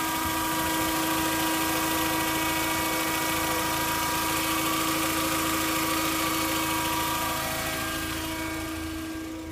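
Volkswagen New Beetle's four-cylinder engine, 165,000 miles on it, idling steadily under the open hood, with a steady whine over the running. It gets quieter near the end.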